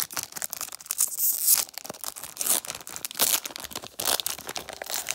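A foil-wrapped trading-card pack being torn open by hand: crinkling and a run of quick sharp rips, with one longer tear about a second in.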